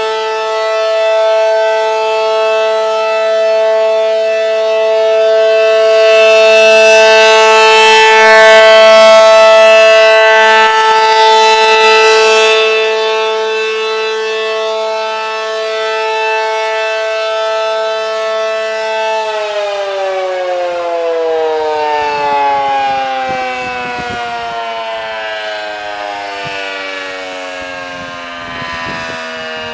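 ACA Allertor 125 outdoor warning siren with 8- and 12-port rotors sounding a steady two-note chord in a siren test, swelling louder and then fading as the siren head turns. About two-thirds of the way through it cuts power and winds down, its chord sliding slowly lower in pitch.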